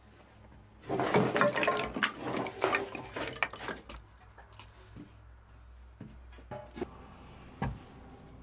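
Water splashing with pots and dishes clattering, loudest for about three seconds from a second in, then a few light knocks.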